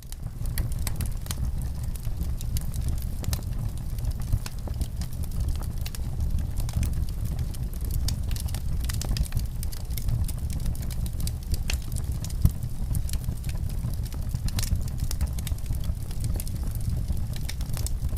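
Wood fire crackling, with frequent short pops and snaps over a steady low rumble.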